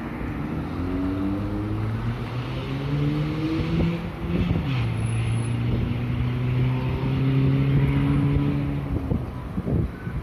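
A passing vehicle's engine accelerating: its pitch climbs steadily, drops at a gear change about halfway through, then holds steady before fading near the end. Wind buffets the microphone throughout.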